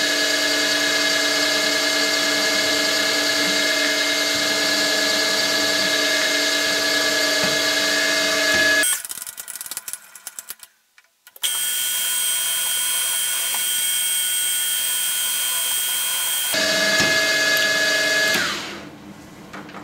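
Milling machine spindle running with a steady whine while a small twist drill bores tap-drill holes for a 3 mm tap in an aluminium plate. The sound breaks off for about two seconds around nine seconds in, comes back with a changed tone, and fades out near the end.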